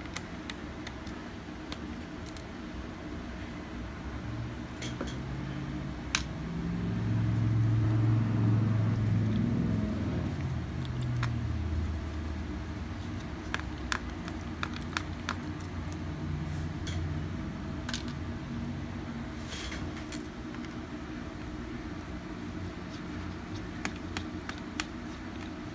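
Scattered small clicks and taps of laptop parts being handled while the motherboard is freed, over a steady low hum. About a third of the way in, a low rumble swells, shifts in pitch and fades over a few seconds.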